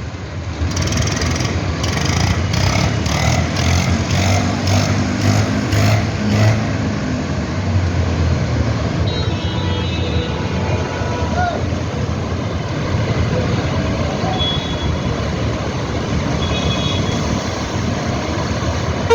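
Road traffic: vehicle engines running steadily with street noise, and a rhythmic swishing about three times a second during the first several seconds.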